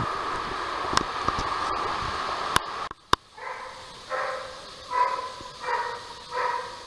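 Steady noise with a few sharp clicks, broken off about three seconds in. Then an animal calls five times in a row, each call short and a little under a second apart.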